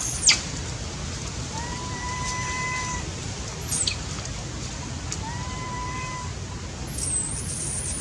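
Young macaque crying: shrill squeals that fall steeply in pitch, about a second in, near four seconds and near the end, the first the loudest. Between them come two longer, steady whining calls, each held for a second or more. A constant hiss runs underneath.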